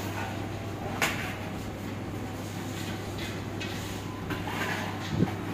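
Metal ladle clinking once against a large aluminium cooking pot about a second in, then a few softer scrapes as chicken masala is scooped and spread over rice, over a steady low kitchen hum.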